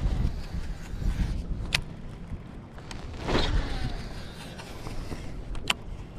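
Wind buffeting the microphone, with a Shimano Curado baitcasting reel's spool whirring briefly as a chatterbait is cast about three seconds in, and two sharp clicks.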